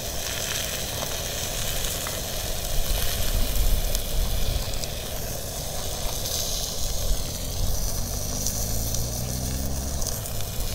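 Food sizzling steadily on the griddle plate of a small portable gas grill. A low motor hum, rising slightly in pitch, comes in about three-quarters of the way through.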